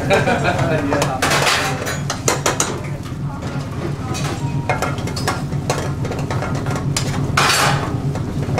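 Metal ladle stirring and scraping curry in metal frying pans on a gas range, with scattered clinks of metal on metal and a few short scraping bursts, over a steady low kitchen hum.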